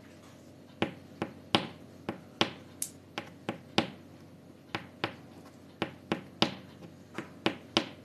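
Long fingernails tapping on a tabletop: about twenty sharp, irregular clicks starting about a second in.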